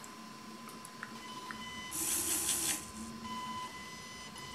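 Small fischertechnik electric motor of the robot arm running briefly at full power, the only setting at which it works, giving a short whirr about two seconds in. A faint steady high whine sounds throughout.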